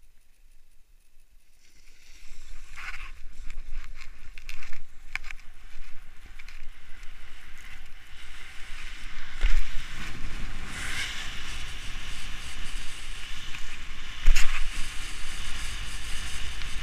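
Skis running downhill on packed snow, heard from a head-mounted camera: a steady hiss of the skis scraping the snow starts about two seconds in, and wind buffeting on the microphone grows into a low rumble from about halfway. Two heavy thumps stand out, one about halfway through and one near the end.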